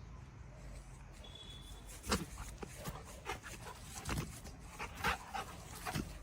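Faint sounds of a dog at close range, with a brief thin high whine about a second in and a few soft knocks and rustles after it.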